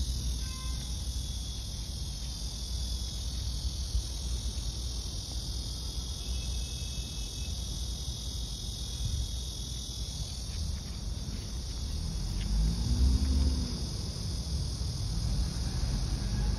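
A steady, high, shrill chorus of insects chirring, with a low rumble underneath that swells briefly about twelve seconds in.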